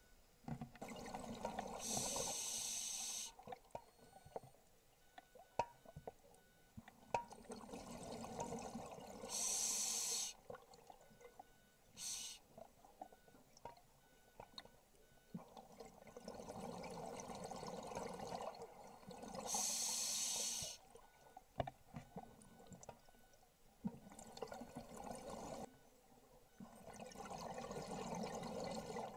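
Scuba diver breathing through a regulator underwater: slow breaths several seconds apart, each a short, bright hiss paired with a longer rush of exhaled bubbles, with a few small clicks in between.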